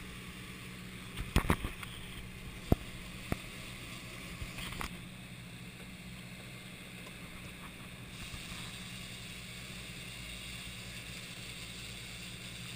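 Outboard motor running steadily under way, with water rushing in the wake and wind on the microphone. A few sharp knocks come in the first few seconds.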